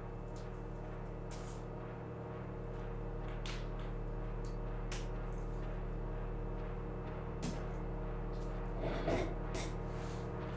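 Hard-shell briefcase being closed and handled: scattered sharp clicks of its lid and latches, then a heavier knock near the end, over a steady low hum.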